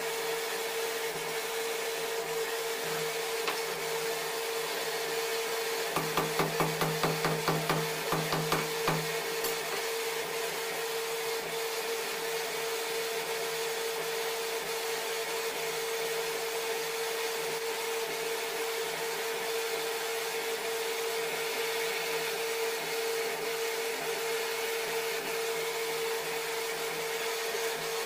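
Electric air blower feeding a coal forge, running with a steady humming whine. A quick run of rapid knocks about six seconds in lasts for about three seconds.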